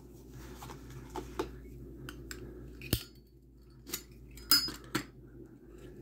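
Light metallic clicks and clinks of Zippo lighter cases and brass inserts being handled, a few scattered small ticks with a sharper click a little under halfway and a cluster of clinks near the end.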